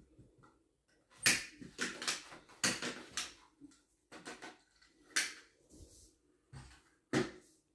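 Handling noise: a string of short knocks and clatters, densest in the first couple of seconds, then a few more spaced out.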